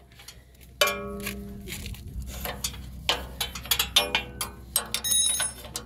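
Steel combination wrench clinking and knocking against bolt heads and the steel frame of a block-making machine. It makes a series of sharp metallic knocks; the loudest, about a second in, rings on for about a second.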